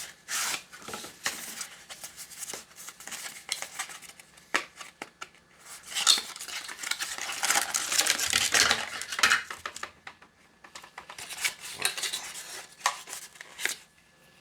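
A wireless doorbell kit and its packaging being handled and unpacked: a run of small clicks, clatters and rustles, busiest around the middle and again near the end.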